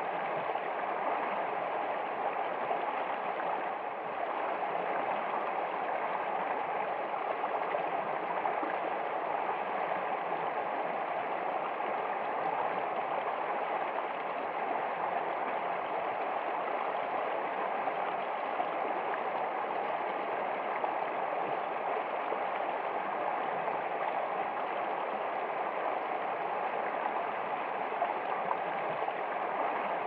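Shallow creek rushing over rocks and a low cascade: a steady, unbroken splashing rush of water.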